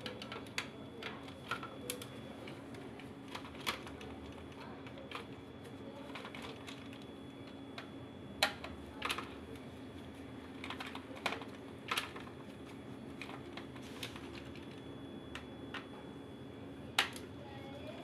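Scattered sharp clicks and light taps, irregular and a second or several apart, of a screwdriver and the plastic housing of a washing machine control board being handled, over a faint steady low hum.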